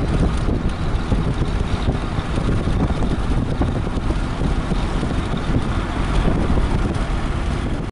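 Wind and road noise inside a moving vehicle: a loud, steady rush, heaviest in the low end.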